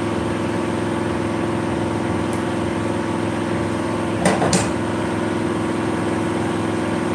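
A steady mechanical hum, like a motor running, holding one level throughout, with two quick clicks a little past four seconds in.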